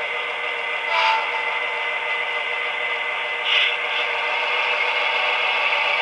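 HO-scale Atlas GP40-2W model diesel locomotive running with its onboard sound decoder, which plays a steady diesel engine sound through a small speaker, mixed with the whir of the model's wheels on the track. Two brief louder noises come about a second in and again at about three and a half seconds.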